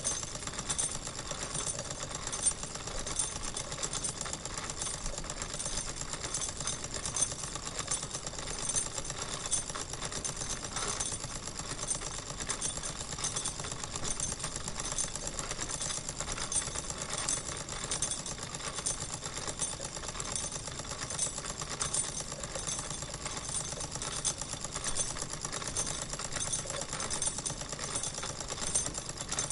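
Wilesco model steam engine running steadily, a fast, even mechanical clatter that holds the same pace throughout.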